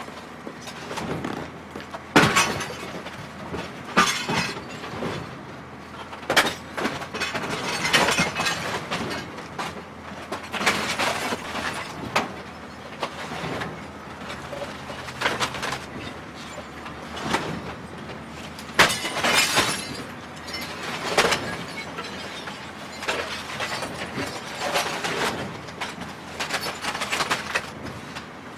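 A television being smashed: repeated sharp blows, each followed by glass and casing breaking and crunching, coming every two seconds or so.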